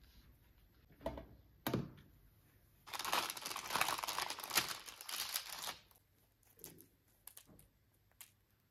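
Two knocks, half a second apart, as a metal baking tray is set down on a table, then about three seconds of baking parchment crinkling and rustling as freshly baked braided brioche loaves are lifted off it.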